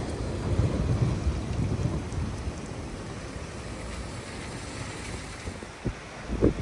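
Typhoon wind buffeting the microphone with rain hissing behind it. The low rumble eases after the first couple of seconds, and a couple of sharp gust thumps come near the end.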